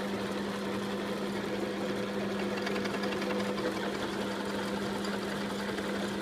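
Deckel FP1 milling machine running steadily with a constant hum, its cutter taking a very light cut along a way strip.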